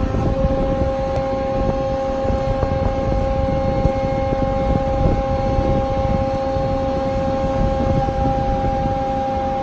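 Large industrial band saw, an Ocean Terminator dual-mitering model, running: a steady low hum with a steady two-note whine over it.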